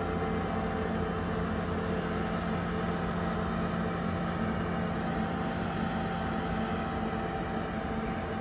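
A cable ferry's engine running with a steady hum as the ferry hauls itself away from the bank along its cables.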